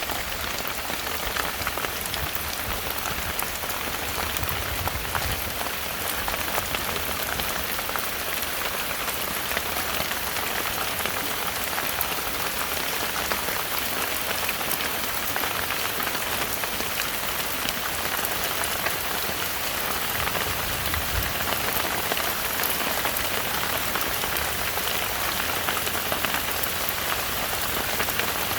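Heavy rain falling steadily in a forest, a dense even hiss of drops striking leaves and the ground, with many small individual drop ticks.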